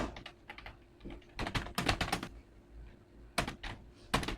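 Typing on an old Intex computer keyboard: two short runs of quick key clicks, the first about a second and a half in and the second near the end.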